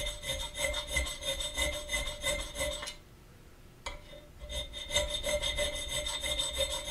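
Flat hand file rasping in quick, even strokes through the keyhole slot of a brass escutcheon blank, with a steady high ring from the brass. The strokes stop for about a second and a half around three seconds in, broken by a single click, then start again.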